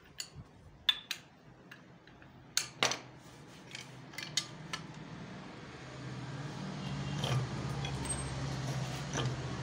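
Metal clinks and clicks of steel motorcycle engine parts and a socket tool being handled while a nut is fitted on the balancer shaft, several sharp clinks in the first three seconds and a few lighter ones later. From about six seconds in a steady low hum rises underneath.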